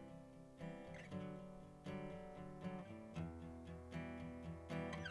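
Background music: acoustic guitar strumming chords, a new chord about every second.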